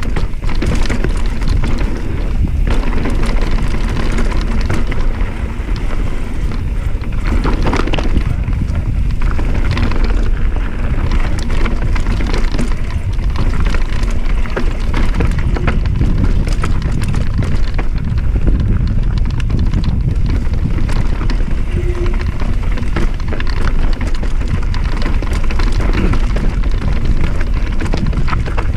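A mountain bike running downhill on a dry, rocky dirt trail: a steady rumble of wind and tyre noise, with frequent small rattles and knocks from the bike as it goes over bumps.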